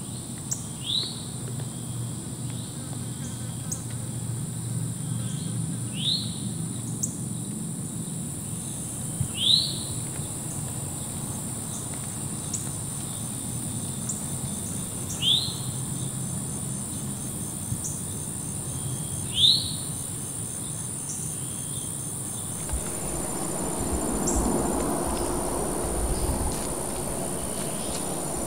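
Evening insects shrilling steadily at a high pitch, with faint regular ticking, while a bird gives five short rising chirps spaced several seconds apart. In the last few seconds a soft rustling swells and fades.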